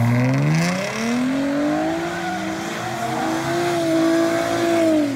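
Ford Mustang's engine revving hard as it spins its rear tyres in a drift: the revs climb over the first two seconds, hold high, then fall away at the end, with the hiss and squeal of the tyres underneath.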